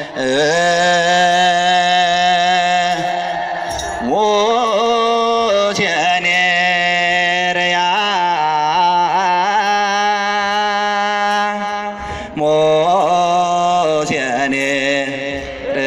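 Religious chant sung in long held notes with wavering, ornamented turns, in phrases separated by brief pauses, heard over a loudspeaker; the style fits an Ethiopian Orthodox hymn (mezmur).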